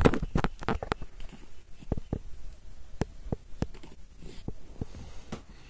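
Irregular light clicks and taps close to the microphone, a few a second, with a louder scuffle at the start.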